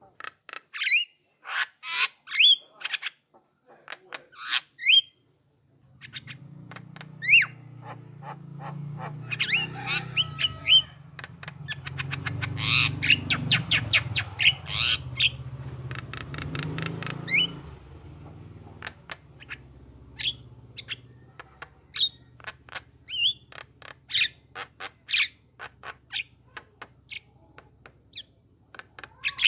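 Javan mynas calling: sharp squawks and short rising whistled notes, with a dense run of rapid chattering calls in the middle. A low hum sits underneath during that busy middle stretch.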